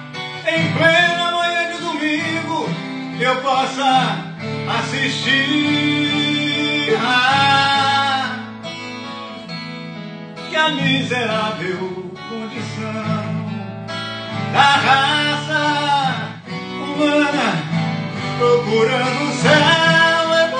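A man singing in Portuguese to his own steel-string acoustic guitar, the voice carrying the melody over the guitar's steady accompaniment, with a softer passage about halfway through.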